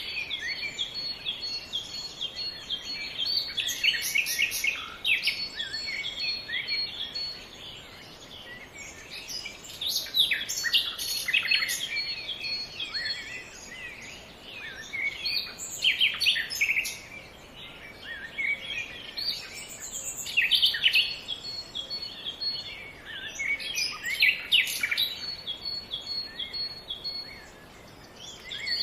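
Several small birds chirping and singing: a busy run of short, quick calls with brief lulls between bursts.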